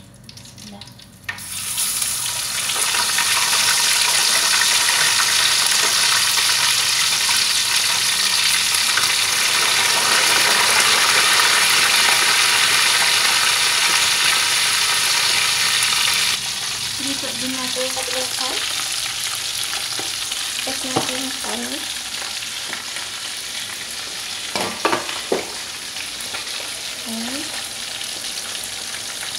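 Boiled lamb pieces frying in hot oil in a stainless steel pot: a loud sizzle starts suddenly about a second in as the meat goes into the oil. The sizzle drops to a lower level about halfway through and goes on steadily, with a few sharp knocks in the second half.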